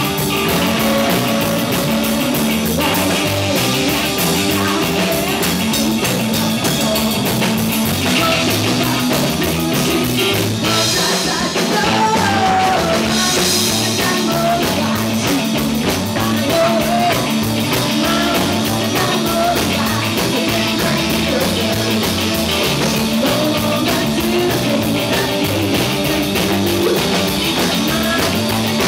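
Rock band playing live: electric guitar and singing in an up-tempo rock-and-roll song, loud and steady.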